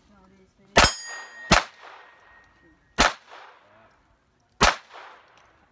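Four pistol shots from a Smith & Wesson M&P22c .22 rimfire pistol, the first two close together, then two more spaced about a second and a half apart. Each shot is answered by the clang of a struck steel plate, and after the first hit a plate rings on for about two seconds.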